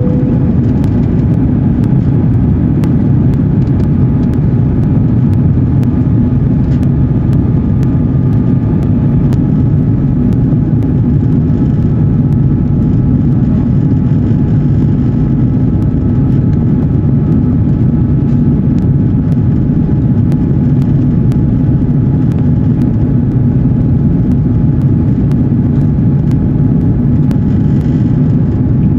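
Cabin noise of an Airbus A330-300 climbing after takeoff, heard at a window over the wing: a steady, deep rush of its Rolls-Royce Trent 700 turbofans and airflow, with faint steady whining tones above it.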